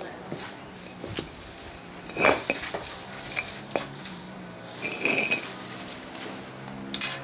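Clay bricks knocking and scraping against each other and the brick paving as they are handled and set in place: a few sharp, irregular knocks and scrapes.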